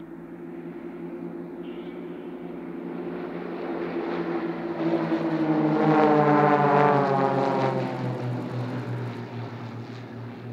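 Four Extra 300-family aerobatic planes flying overhead in formation. Their piston engines and propellers grow louder to a peak about six seconds in, then drop in pitch as the formation passes and begins to fade.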